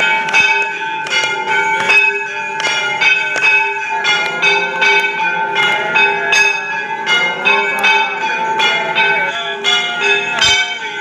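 Temple bells rung rapidly and steadily during an aarti, about two to three strikes a second, their ringing overlapping, with voices singing faintly beneath.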